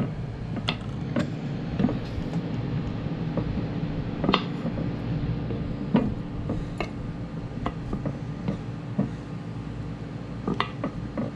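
Irregular clinks and knocks of kitchen utensils and dishes during food preparation, sharp strokes every half second to second and a half, over a steady low hum.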